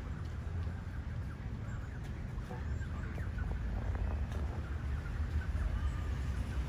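Canada geese and their goslings giving many soft, short calls over a steady low rumble.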